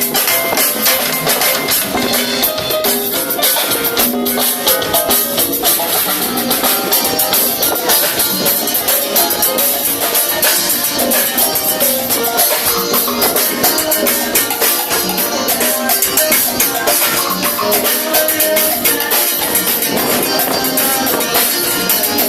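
Live band playing during a soundcheck: drum kit and shaken maracas keep a steady beat under pitched instruments.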